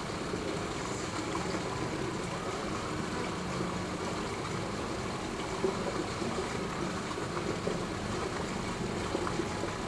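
Steady outdoor background noise: an even rush with a faint low hum and no distinct events.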